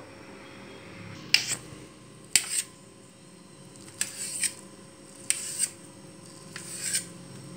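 Kitchen knife slicing through a soft block of fresh paneer, its blade clicking and scraping on a stainless steel plate in several short, sharp strokes at irregular intervals.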